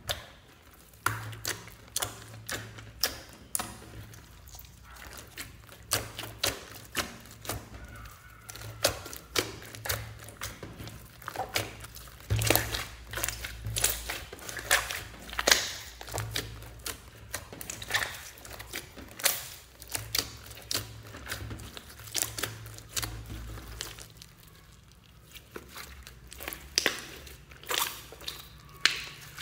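Hands squeezing and kneading a large lump of glittery slime, with sharp wet pops and clicks of trapped air over and over, a couple a second.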